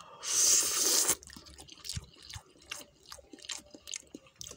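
Person slurping hot instant noodles in soup: one loud slurp for about a second, then chewing with small wet clicks.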